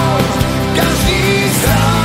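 Pop song music: a full arrangement of sustained chords, with a few sliding notes about halfway through.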